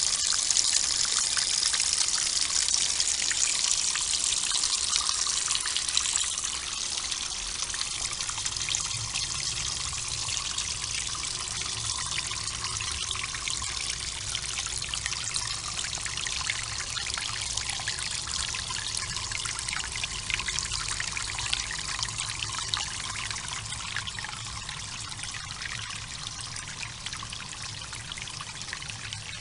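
Filtered water spilling from a raised filter and falling into the water below like a small waterfall: a steady splashing trickle that drops a little in level about six seconds in.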